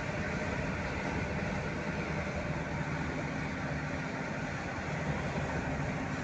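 Steady engine hum and road noise inside a moving vehicle's cabin.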